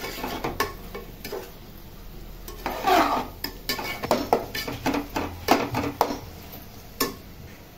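Spatula stirring and scraping a thick onion and tomato masala against the side and bottom of a metal pot: irregular scrapes and taps, bunched in the middle with one last stroke near the end.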